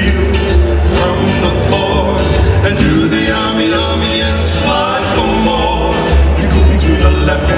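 Recorded Polynesian hula song with guitar, a singing voice and a steady, pulsing bass line.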